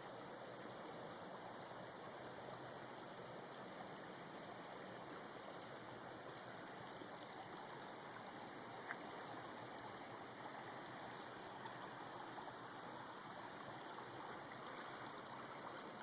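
Faint, steady rush of creek water flowing, with one small click about nine seconds in.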